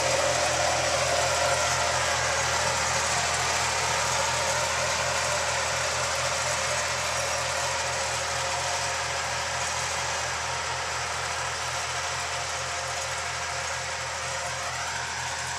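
Farm tractor engine running steadily under load as it pulls a disc harrow through the stubble, with an even low pulsing beat. It fades slowly as the tractor moves away.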